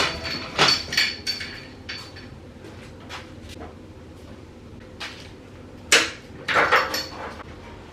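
A series of sharp knocks and clatters, bunched in the first second or so and again about six to seven seconds in, with a quieter stretch between.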